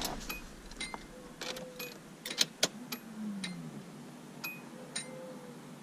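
Ignition clicks and a brief electric whir that falls in pitch about three seconds in: a Nissan 240SX's newly installed Walbro 255 in-tank fuel pump priming as the key is turned on.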